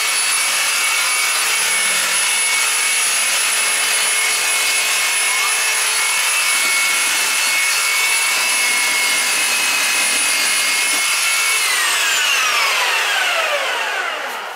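Reciprocating saw running flat out, cutting through a Christmas tree's trunk and branches with a steady high motor whine. About 12 seconds in the trigger is released and the motor winds down, its pitch falling over a couple of seconds until it stops.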